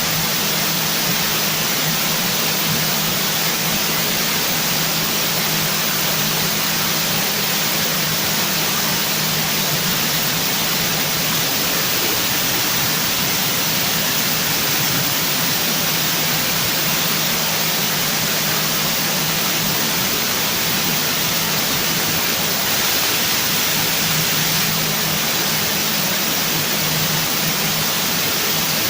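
Steady, unchanging hiss with a low hum underneath.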